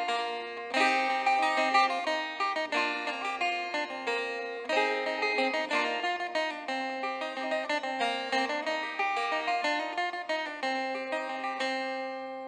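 Background music: a plucked string instrument playing a melody of quickly struck notes that ring and fade.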